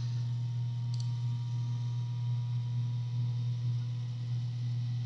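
Steady low electrical hum, with a single sharp computer mouse click about a second in.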